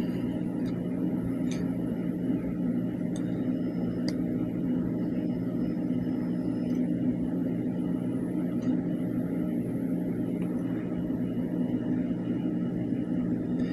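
A steady low mechanical hum, with a few faint light clicks scattered through it.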